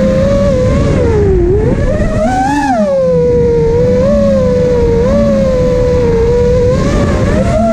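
FPV quadcopter's brushless motors whining. The pitch dips and rises with the throttle and climbs sharply about two and a half seconds in.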